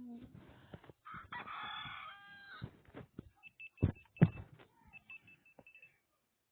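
A rooster crowing once for about a second and a half, followed by two sharp knocks in quick succession and a few short high chirps.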